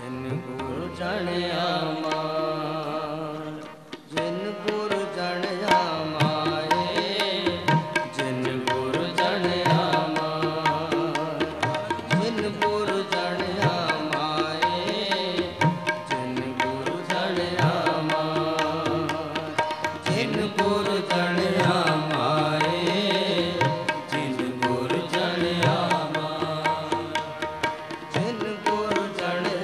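Sikh kirtan: male voices singing Gurbani with harmonium and tabla. After a short lull about four seconds in, the tabla strokes come in and keep a steady beat.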